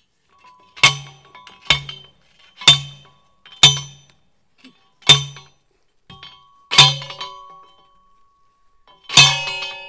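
Hand post driver pounding a metal fence post into the ground: seven ringing metal-on-metal clangs, about one a second at first, then spacing out, with the last strike coming after a longer pause near the end.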